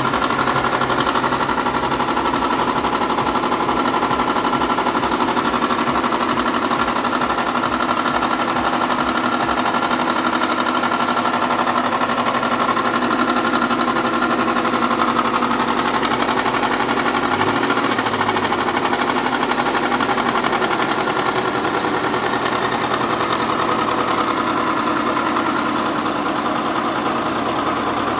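Subaru EJ152 1.5-litre flat-four engine running steadily at idle with the knock (стук) that the owner is recording. The engine note shifts briefly about two-thirds of the way through.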